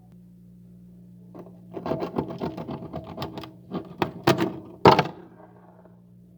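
Freezer frost crunching and scraping in a quick run of crackling clicks for about four seconds, with one sharp, loud knock near the end, over a steady low hum.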